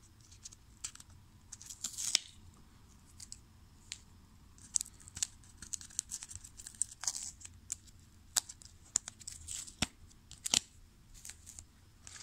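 Masking tape being peeled off a hard plastic toploader, with a brief ripping rasp about two seconds in, then scattered sharp plastic clicks and scratchy rubbing as the trading card is slid out and cards are handled.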